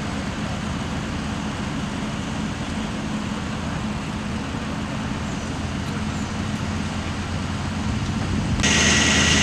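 Steady engine and road-traffic noise with a constant low hum from vehicles at the scene. About eight and a half seconds in it cuts suddenly to a louder, hissier engine sound with a thin steady whine.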